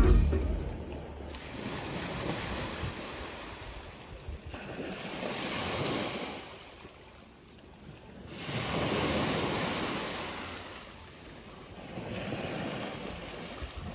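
Gentle surf: small waves breaking and washing up the shore, swelling and fading about four times.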